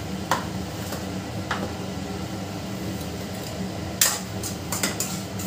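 Spoon knocking and scraping against a kadhai as a masala is stirred: a couple of single clinks early on, then a quick cluster of sharper knocks about four seconds in, over a steady low hum.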